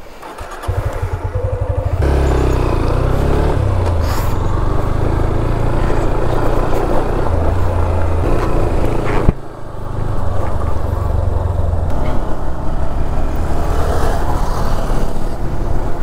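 Motorcycle engine running as the bike is ridden. It builds up over the first two seconds and dips sharply for a moment about nine seconds in before carrying on.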